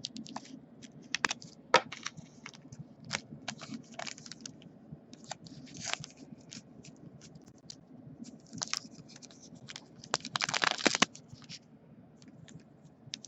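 Baseball cards being handled and sorted: scattered light clicks and slides of cards, with a short burst of crinkling about ten seconds in.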